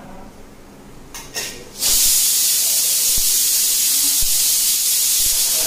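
A loud, steady hiss starts suddenly about two seconds in and cuts off about four seconds later. Underneath it there are a few faint knife taps on a wooden chopping board.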